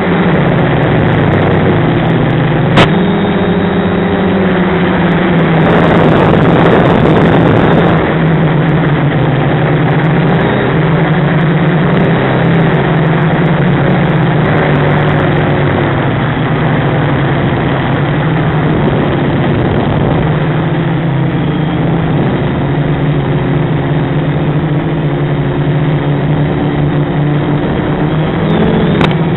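Quadcopter's Sunnysky brushless motors whining steadily, their pitch drifting up and down with throttle through the flight, with a louder rushing noise for about two seconds starting some six seconds in.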